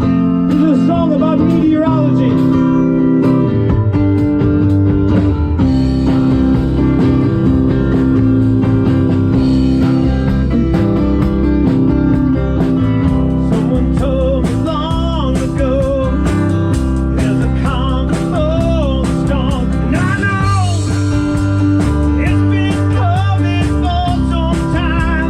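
Live rock band playing, with a lead line of bending, wavering notes over the bass and chords from about halfway through.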